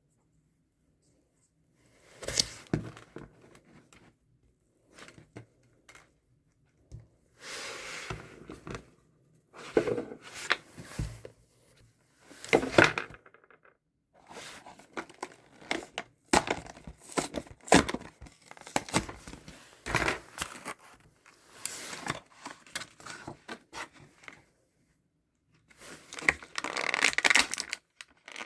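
Packaging being torn and crumpled by hand in repeated bursts of rustling, with short pauses and a few sharp clicks between them.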